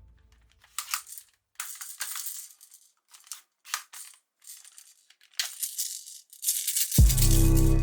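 A plastic toy gun being handled: a run of short, irregular clicks and rattles. About seven seconds in, background music with a heavy bass beat begins.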